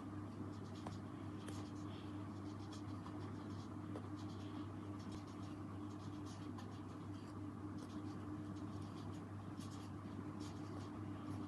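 Faint, irregular scratching and rustling of hands handling and squeezing squishy toys, over a steady low electrical hum.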